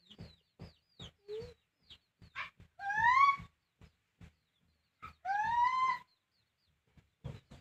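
Mother cat in labour meowing: two long calls that rise in pitch, about two seconds apart. A run of short, quick chirps comes before them.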